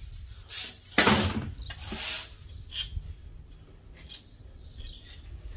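Metal scraping and creaking in short bursts as a steel strip from a scrap copper-aluminum radiator coil is twisted and bent by hand, the loudest scrape about a second in.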